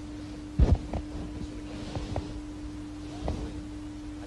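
A steady low hum, with a dull thump about half a second in and a few fainter knocks later.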